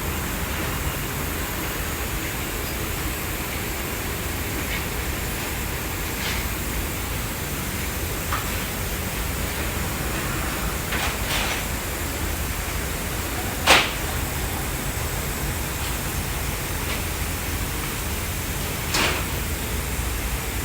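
Steady hiss of background noise with a few short sharp clinks. The loudest clink comes about 14 seconds in and another comes near the end.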